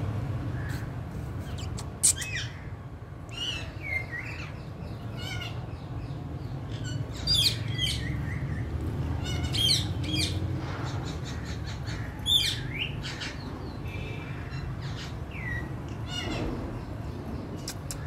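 Rose-ringed parakeet giving short, sharp chirps and squawks, with a few loud calls scattered among softer ones, over a steady low rumble.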